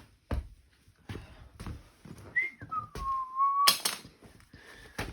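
A string of knocks and thuds, with one whistled note about halfway through that drops in pitch and then holds for about a second.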